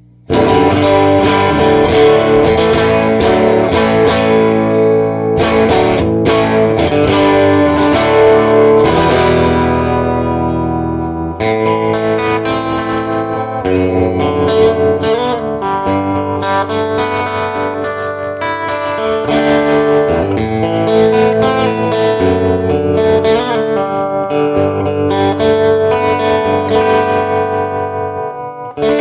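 Electric guitar with a single underwound P90-style pickup played through a 30-watt hand-wired all-tube amp on its second channel, strumming big open chords and letting them ring.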